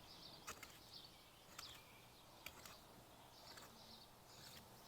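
Near silence: faint background tone with a few soft ticks.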